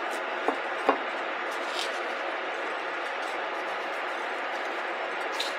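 Two short knocks about half a second apart as raw bison filets are flipped over on a plate, over a steady background hiss.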